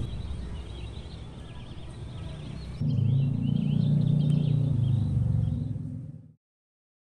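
Outdoor ambience of small birds chirping over a steady low rumble. The rumble gets louder at a cut about three seconds in, and everything then fades out to silence shortly before the end.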